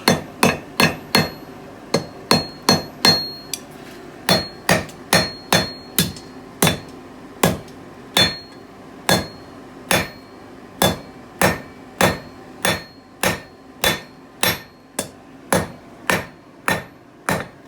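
Blacksmith's hand hammer striking hot EN9 steel bar on the anvil in a steady rhythm of about two to three blows a second, many blows followed by a short high ring from the anvil. The bar is being drawn out on the anvil's radius, straightening the zigzag left by fullering.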